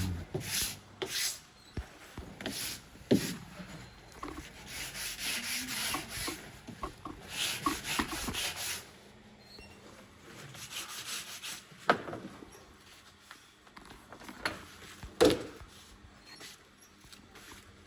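Upholstery material being rubbed and smoothed over a headliner panel: irregular scraping and brushing strokes, with a few sharp knocks, the clearest about three, twelve and fifteen seconds in.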